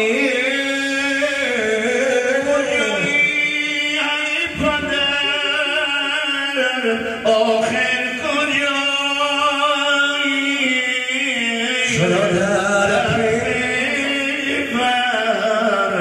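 Male voices singing a Dari naat (Islamic devotional song) through microphones, a chant-like melody with a held low note sounding underneath at times. The lead passes from one singer to another partway through.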